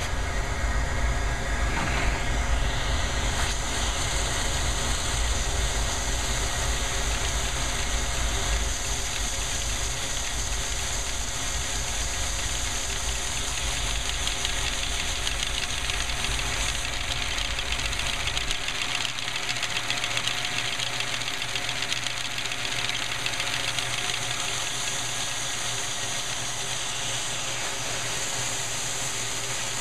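A vacuum cleaner running steadily, its wand held to the intake of a LEGO three-cylinder vacuum-powered engine, with the suction driving the engine's plastic pistons and crank. A steady motor whine and rush of air, with a low rumble that drops away about two-thirds of the way through.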